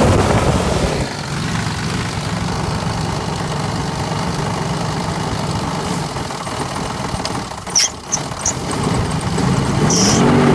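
The 4.7 L V8 of a 2000 Jeep Grand Cherokee running near idle with a tapping knock and rattle, then briefly revved near the end. A mechanic put the knock down to two slapping pistons and the rattle to a badly slack timing chain.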